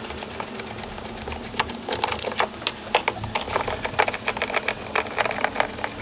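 A No. 3 Phillips screwdriver turning screws out of a golf cart's plastic beverage holder: a run of quick, irregular small clicks and scrapes.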